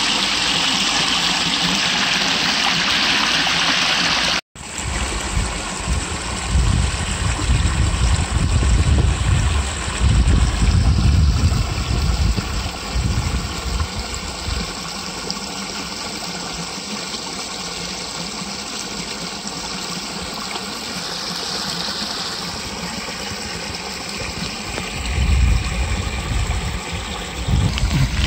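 Water pouring over a small stone weir into a pool: a steady rushing splash. After a cut a few seconds in, a low rumble comes and goes over it.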